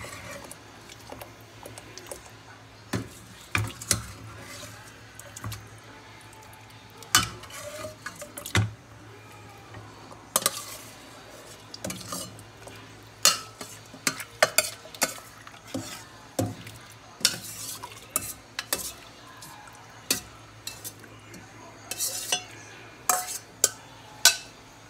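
Metal spoon scraping and clinking against a stainless steel pot as cooked pork pieces are spooned out into a pan, with irregular sharp clanks about every second.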